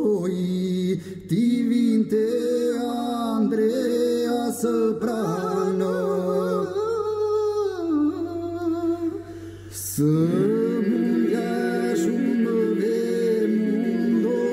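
Male voices singing an Albanian elegy unaccompanied: a slow, ornamented lead line over a held lower note. The singing thins out about eight seconds in, and the voices come back together about ten seconds in.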